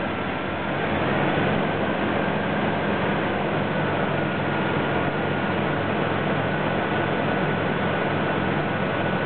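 Isuzu D-Max engine running, picking up from idle to a steady 1,000 rpm about a second in, with a thin steady whine above it.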